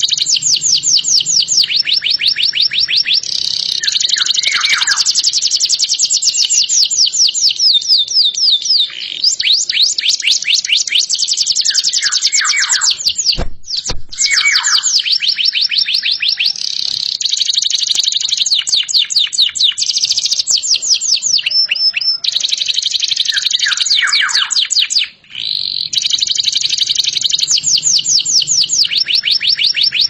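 Domestic canary singing a long, loud song: runs of fast, high trills made of rapidly repeated notes, broken now and then by lower falling whistles. The song pauses briefly a little before halfway.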